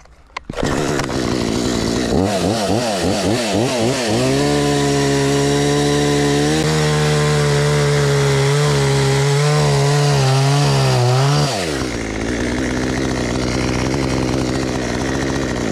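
Parkside PBKS 53 A2 chainsaw's 53 cc two-stroke engine revved up and down a few times, then held at full revs for about seven seconds while cutting a seasoned chestnut log, its note wavering under load. Near the end it drops back to a steady idle.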